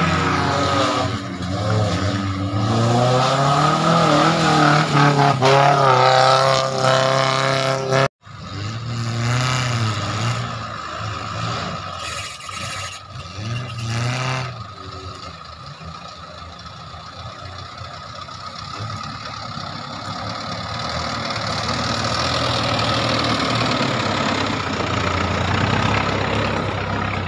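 Engine of an engine-swapped Suzuki Jimny off-roader revving up and down as it drives over rough ground, with a brief break about eight seconds in. Later a steadier engine sound builds louder as a Jimny comes close.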